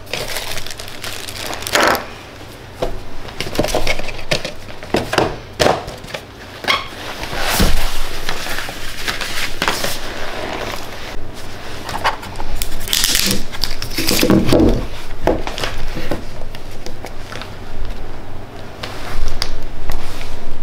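Unboxing handling noise: a cardboard box and a plastic accessory bag rustling and crinkling, with irregular clicks and knocks as the jump starter's parts are set down on a wooden table.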